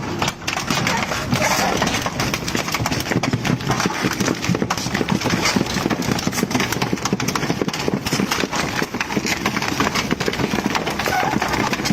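Shredding machine running, a steady mechanical drone with dense, rapid knocking and clattering.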